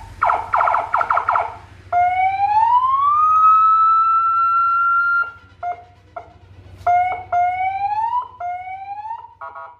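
CJB200W electronic siren on a Yamaha NMAX motorcycle being run through its tones. It gives a fast warble, then a long wail that rises and holds for about three seconds, a few short blips, two shorter rising sweeps, and a quick burst of chirps at the end.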